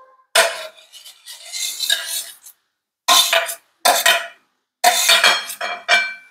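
Metal spatula scraping boiled potato cubes off a steel plate into an aluminium kadhai: several short bursts of metal scraping and clattering against steel.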